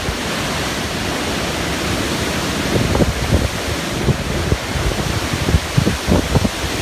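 Strong storm wind: a steady rushing hiss, with gusts buffeting the microphone in low thumps from about halfway through.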